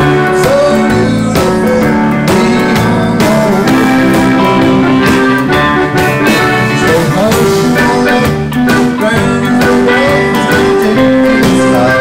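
Live band playing a song on electric bass, electric guitar and drum kit, with a steady beat.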